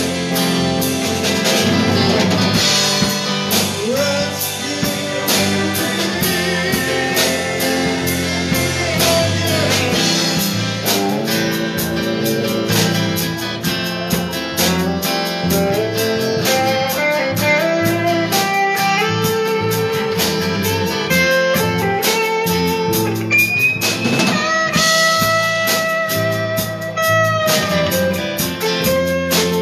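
Live blues band playing a slow blues on electric guitars, electric bass and drum kit. A lead line of long, bending notes rings out near the end.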